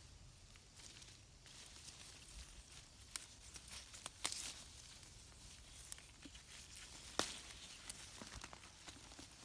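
Pepper plant foliage rustling faintly while peppers are picked by hand, with scattered sharp snaps of stems breaking off, a few of them louder.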